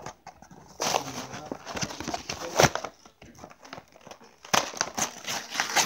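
Toy packaging being opened by hand, crinkling and tearing in irregular bursts: a stretch about a second in, a sharp crackle near the middle, and another run of crinkling near the end.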